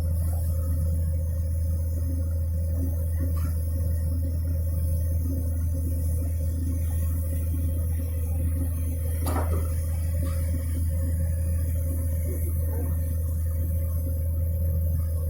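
Komatsu PC200 excavator's diesel engine running steadily with a deep, even hum, and one short knock about nine seconds in.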